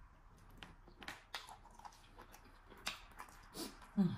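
Wet chewing and mouth smacks of a person eating fufu and slimy okra soup by hand, with scattered sharp clicks. A short low sound falling in pitch near the end is the loudest moment.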